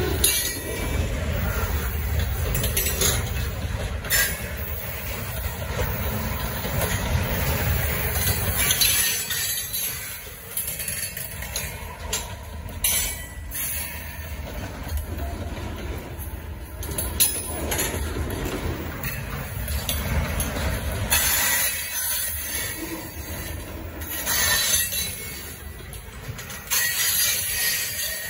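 A freight train of tank cars rolling past at close range, its steel wheels rumbling over the rails, with recurring stretches of high-pitched wheel squeal. The low rumble is heaviest for about the first nine seconds, then eases.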